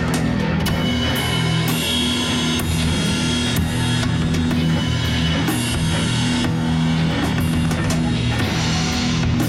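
Drum kit played in a rock piece, busy drum and cymbal hits over a band track with guitar and held bass notes.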